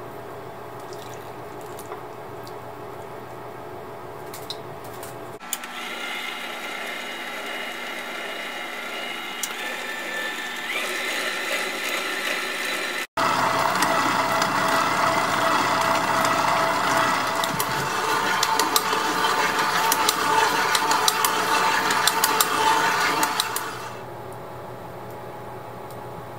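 Stand mixer motor running with its dough hook working sticky dough in a glass bowl. The motor whine is joined by many quick slaps and clicks of the dough against the bowl. It grows louder after a cut about halfway, and the mixer stops a couple of seconds before the end.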